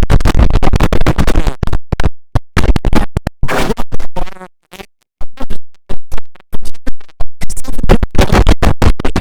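Digitally chopped and stuttered audio with a record-scratch-like effect, cut into many short fragments with abrupt starts and stops, and a brief silent gap about five seconds in.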